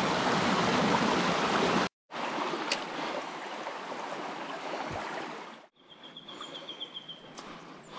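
Rushing water of a small rain-swollen trout stream, loud where it pours over rocks in a small cascade. It cuts off suddenly about two seconds in and gives way to a quieter flow, then drops again to a faint stream sound with a short high trill near the end.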